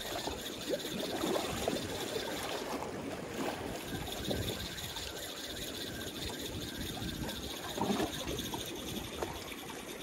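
Seawater sloshing and splashing against the concrete blocks of a breakwater, with the faint whir of a spinning reel being wound in.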